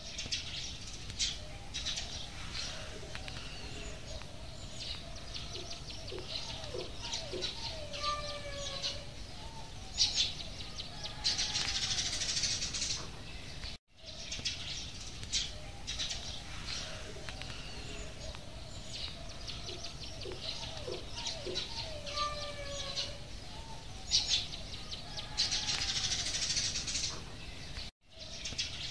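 Birds chirping and calling outdoors, with many short high clicks and a few wavering, falling calls. The same stretch of about fourteen seconds plays twice over.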